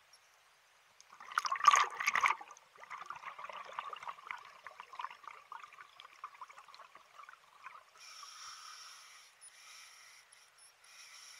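Scuba diver breathing through a regulator underwater. About a second in there is a loud rush of exhaled bubbles, which crackle and gurgle for several seconds as they rise. Near the end comes the hiss of the next inhalation through the regulator.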